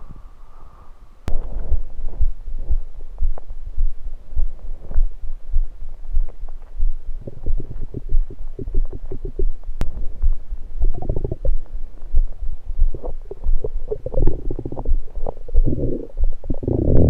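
Human stomach gurgling with soda in it: irregular low rumbles and bubbling, with louder gurgling runs about two-thirds of the way in and again near the end. A sharp click comes about a second in, and another a little past the middle.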